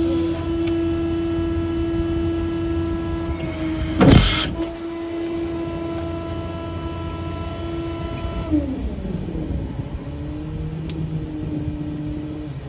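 A machine running with a steady whine that drops to a lower pitch about two-thirds of the way through and holds there. A single loud thump about four seconds in.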